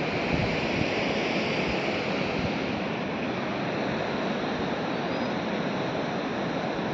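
Steady, even rushing outdoor noise with no distinct events, the kind made by wind or running water.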